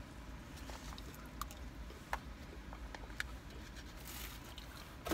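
Quiet eating sounds: faint chewing and the scattered ticks and rustles of handling food and its packaging. There is a brief rustle about four seconds in.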